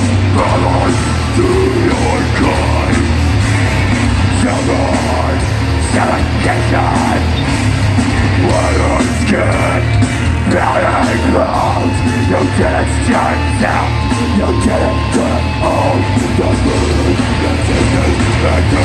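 Hardcore band playing live, loud: distorted guitars, heavy bass and drums, with yelled vocals over the top.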